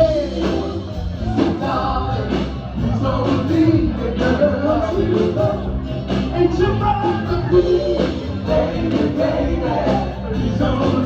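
Upbeat music with singing and a steady beat, in the style of Motown soul.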